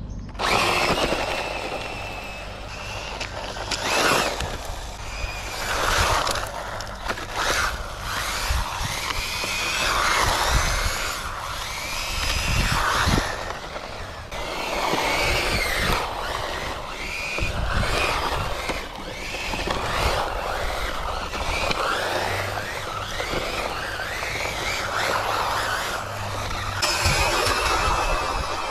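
MJX HyperGo brushless RC rally car's electric motor whining, its pitch rising and falling again and again as it accelerates, drifts and passes at speed, over a steady hiss of its tyres on loose dirt and gravel.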